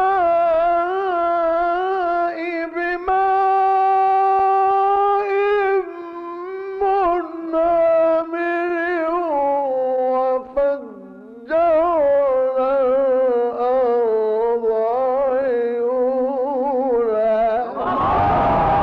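A male Quran reciter chanting in the melodic mujawwad style, drawing out long held notes with wavering ornaments and a short pause for breath midway. In the last second, the listeners break in with a burst of many overlapping voices calling out in approval.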